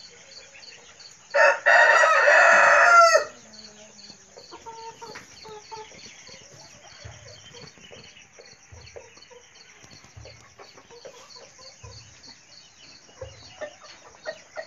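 Silkie rooster crowing once, about a second in, the call lasting nearly two seconds. A steady high insect chirping runs underneath, and short soft clucks follow, busier near the end.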